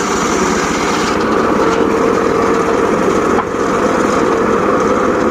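Small engine of a homemade circular saw rig running steadily, with a steady whine coming in about a second in.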